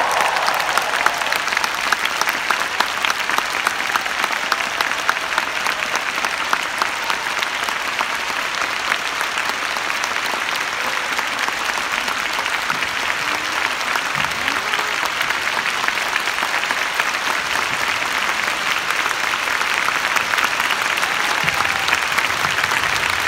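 Large arena crowd applauding at the end of a concert song, the last musical notes dying away at the very start. Loud claps close by stand out for the first few seconds, then it settles into a steady wash of clapping.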